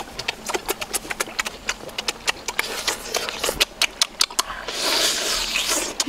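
Close-up eating sounds: a quick, irregular string of wet clicks from chewing and lip-smacking on grilled octopus, with a breathy hiss for about the last second.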